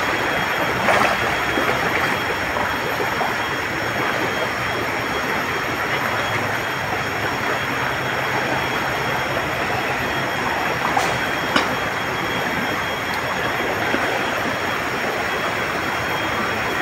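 Swollen river rushing steadily, a dense even noise of flowing water, with a faint thin high steady tone over it and a sharp click about eleven seconds in.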